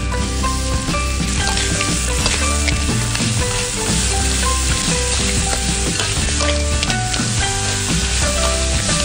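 Crabs sizzling in hot oil in a metal wok while a metal spatula scrapes and tosses them, over light background music.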